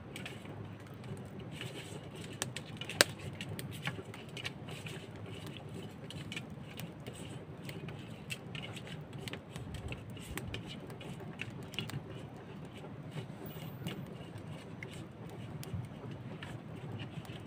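Hands rubbing seasoning into a raw sea snake on a steel plate: scattered light scrapes and clicks of fingers and flesh against the metal, with one sharp click about three seconds in, over a low steady hum.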